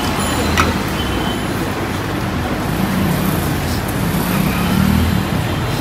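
Steady rumble of road traffic, with a single light click about half a second in.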